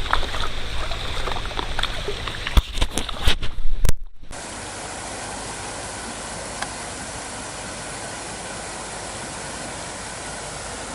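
Close knocks and rustling for about four seconds, then an abrupt change to the steady rush of river water flowing.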